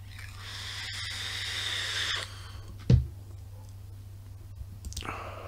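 A hissing draw on a vape (electronic cigarette), growing louder for about two seconds, then a single dull thump about three seconds in, and a breath of vapour blown out near the end.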